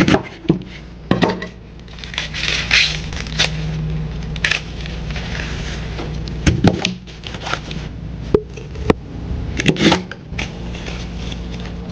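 A large kitchen knife chopping through ears of fresh corn in their husks, with sharp knocks of the blade reaching the cutting mat on the countertop. Between the cuts come the rustling and tearing of green husks being stripped off the cobs.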